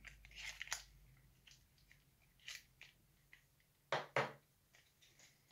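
A lipstick tube and its paperboard carton being handled: scattered light clicks and crinkles, with two louder knocks close together about four seconds in.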